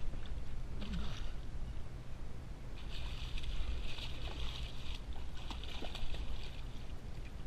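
Striped bass thrashing and splashing at the water's surface beside a kayak while being grabbed by hand. The splashing comes in bursts about a second in and again from about three seconds in, over a low wind rumble on the microphone.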